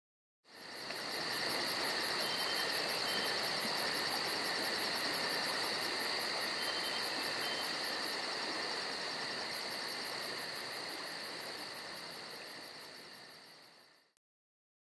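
Insects trilling in a night chorus: a steady high trill with fast, evenly spaced pulses. It fades in just after the start and fades out near the end.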